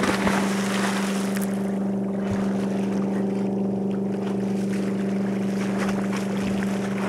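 Motorboat engine idling with a steady low hum, with a rush of water noise in the first second or so as a swimmer goes in off the bow.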